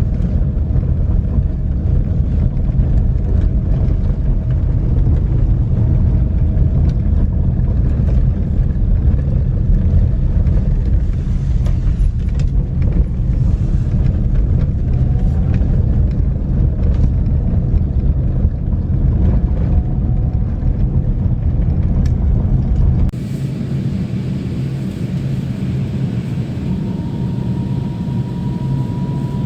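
Road noise inside a moving car's cabin: a heavy low rumble of tyres and engine with scattered knocks and rattles. About 23 seconds in it cuts abruptly to a lighter, hissier cabin sound with a faint whine that rises slightly near the end.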